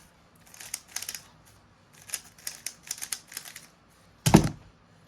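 MoYu RS3M Super 2021 3x3 speed cube turned in quick bursts of plastic clacking during the last moves of a solve, then a single loud thump about four seconds in.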